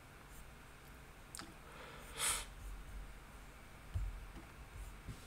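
Quiet room tone with a faint click, a short hiss about two seconds in, and a soft low thump about four seconds in.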